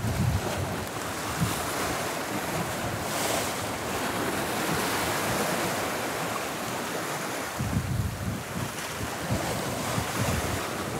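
Sea surf washing and breaking against the rock shore, with wind buffeting the microphone in gusts near the start and again about eight seconds in.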